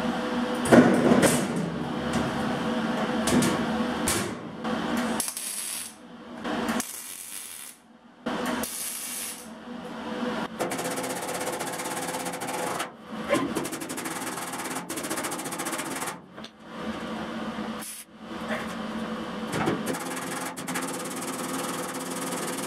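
A sheet-steel hull panel being handled and fitted against a steel tube frame: scraping, rattling and knocks of thin metal, with a loud clang about a second in, over a steady hum.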